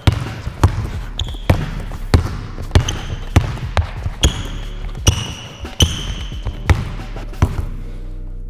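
Basketball dribbled hard on a wooden sports-hall floor, about two bounces a second, with short squeaks of sneakers on the hardwood in between. The bouncing stops about a second before the end.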